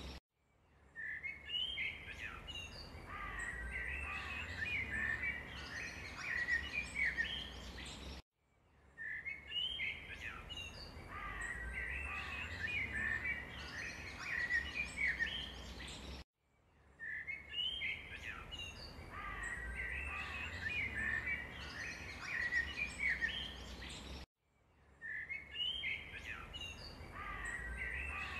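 Small birds chirping and trilling over a low background rumble, from a looped ambience track that repeats about every eight seconds with a brief dropout between repeats.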